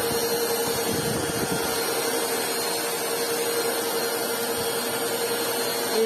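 WAP Life Speed 2-in-1 upright vacuum cleaner (2000 W) running steadily, a constant motor whine over a steady rush of air.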